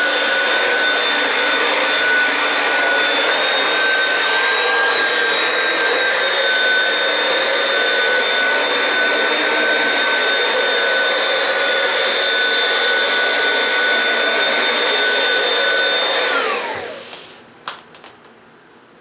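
Vacuum cleaner running steadily with a high motor whine. Near the end it is switched off and the motor winds down in a falling whine, followed by a couple of sharp clicks.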